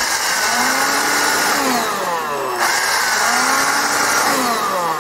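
AEG Ergorapido 18 V cordless stick vacuum running with its motorised turbo brush switched on: a steady whirring hiss whose pitch sinks and recovers twice. The turbo brush is working again now that its three-pin power plug, whose broken connection had made the red warning LED flash, is plugged back in.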